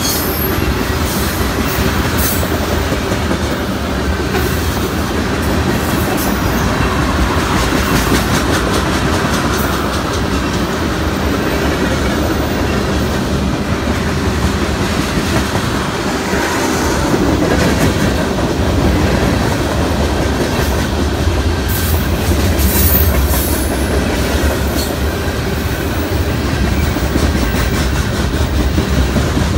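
Freight cars of a long freight train (tank cars, a gondola and covered hoppers) rolling past close by: a steady, loud noise of steel wheels on the rails, with sharp clicks now and then as the wheels pass over the rail joints.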